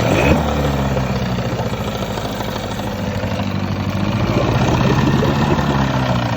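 Mercury 9.9 outboard motor running, its speed dipping briefly at the start and rising about four seconds in before easing back. The motor is running with the shift in gear while the prop does not turn, the fault being diagnosed.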